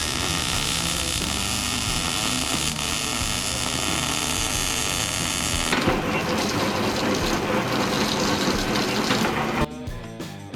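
A machine's motor running steadily with a faint steady whine. Its sound changes about halfway through and cuts off near the end.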